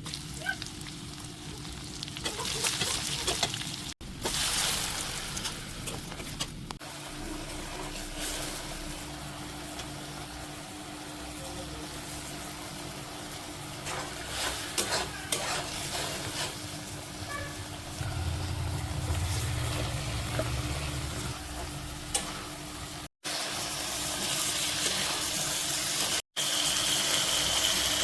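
Chicken frying in a pan, with sizzling and the scrape and clatter of stirring, over several short cut-together clips that each end abruptly.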